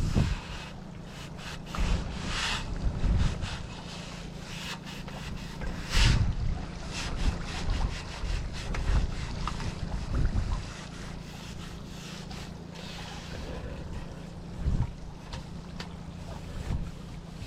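Irregular scrubbing and scraping strokes while cleaning mold and dirt off a pool-enclosure screen frame, with several heavier knocks, the strongest about six seconds in. Steady wind rumble on the microphone underneath.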